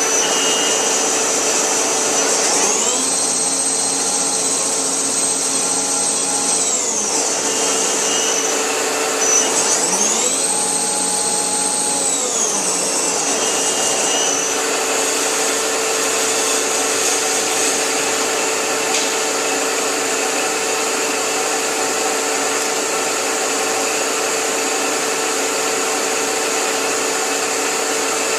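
Victor CNC lathe under power: a steady machine hum, with the spindle drive whining up in pitch, running a few seconds and winding back down, twice in the first half.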